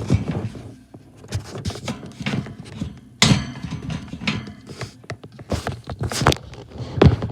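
Irregular knocks, clicks and clatter, like hard objects being handled and bumped, with a sharp knock about three seconds in.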